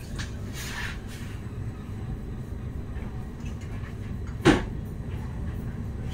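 Edinburgh tram (CAF Urbos 3) running, heard from inside the driver's cab as a steady low rumble, with one sharp knock about four and a half seconds in.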